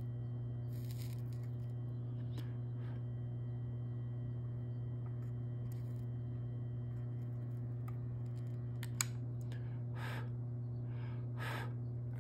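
Steady low hum under a few faint clicks and light taps of small-parts soldering work: a fine wire and a pronged soldering tool handled against a small circuit board. A sharper click comes about nine seconds in.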